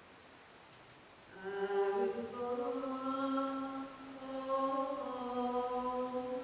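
A single voice chanting slow, long-held wordless notes with small slides between pitches as the dance's soundtrack. It comes in after a near-quiet pause about a second in.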